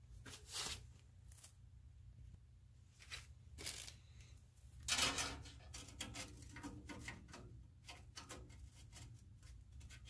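Faint rustles and light clicks of hands handling a gas furnace's flame sensor and its wire as it is refitted at the burner assembly. The loudest scrape comes about five seconds in, followed by a run of small quick clicks, all over a low steady hum.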